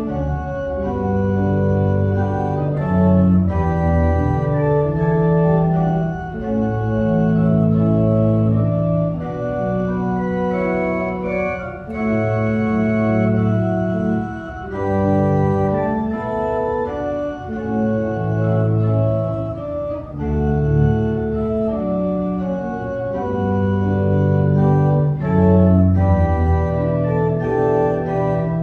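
Church organ playing a slow piece in held chords that change every second or two, with brief breaks between phrases.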